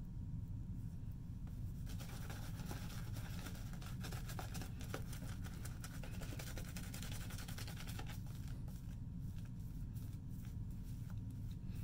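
Yaqi synthetic shaving brush being worked over a lathered face: a wet crackling and scratching of the bristles through the shaving soap lather. It builds about two seconds in and thins to scattered ticks near the end.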